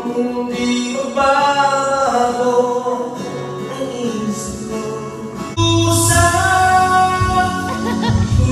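A man singing karaoke into a handheld microphone over a recorded backing track, holding long sung notes. A little past halfway the backing gets fuller and louder, with a heavy bass part.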